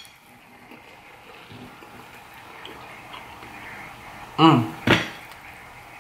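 Close-up eating sounds: faint chewing and mouth noises, then, about four and a half seconds in, a short loud gurgling slurp through a drinking straw followed by a sharp smack.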